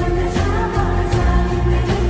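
Lofi remix of a Hindi film love song: music with a steady beat and deep bass under sustained melody notes.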